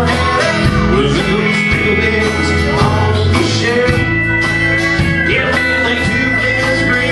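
Live country band playing: drums, electric bass, acoustic guitar and pedal steel guitar.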